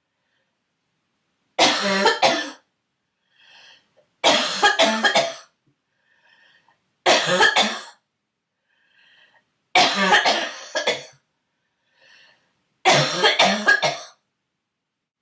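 A girl coughing in five bouts of two or three coughs each, about every two and a half to three seconds, with faint in-breaths between the bouts.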